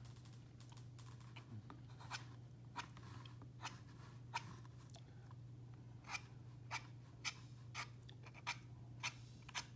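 Palette knife scraping across damp watercolour paper in a string of short, scratchy strokes, about one every half second with a pause about halfway through. Each stroke pushes the still-wet paint aside down to the white of the paper to cut feather lines. A steady low hum sits underneath.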